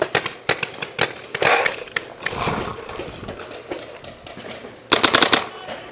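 Paintball markers firing: scattered single pops in the first couple of seconds, then a rapid string of about eight shots in half a second near the end, the loudest sound, from the player's HPA-powered Dangerous Powers G3 Spec-R electronic marker close by.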